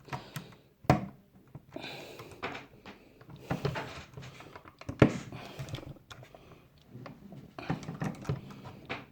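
Irregular clicks, taps and scraping of a screwdriver and small screws being handled while a graphics card is taken apart, with two sharper knocks about one second and five seconds in.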